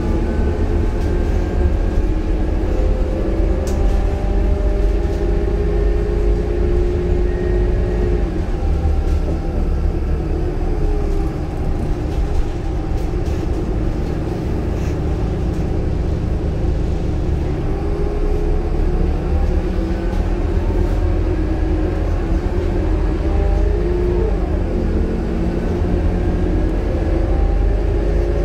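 Scania K230UB city bus heard from inside the passenger cabin: its turbocharged Scania DC9 inline five-cylinder diesel and ZF Ecomat automatic gearbox under way, a deep rumble with a whine that rises in pitch as the bus gathers speed. The whine drops away about a third of the way in and climbs again in the second half.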